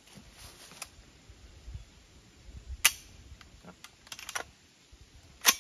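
A single suppressed 9mm shot from a custom integral-silenced AR-type upper with a roller/bearing-delayed action, a short sharp crack near the end. About halfway through there is an equally loud but thinner metallic clack, followed by a few small clicks of the rifle being handled.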